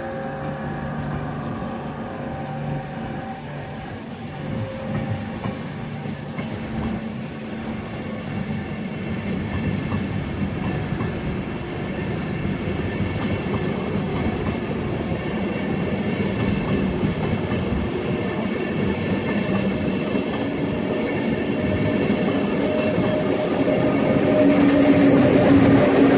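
Electric passenger train running through the station, its traction tones and wheel-on-rail rumble growing slowly louder as it passes, with some clickety-clack. A loud bright hiss joins near the end.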